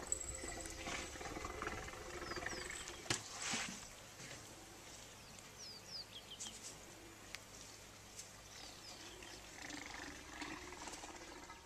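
African elephant making low rumbling, growl-like calls at close range, with a sudden loud noisy burst about three seconds in. Small birds chirp throughout in short falling notes.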